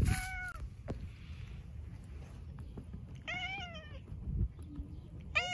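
Tabby cat meowing in short calls that dip in pitch at the end, three times: at the start, about three seconds in, and again at the very end.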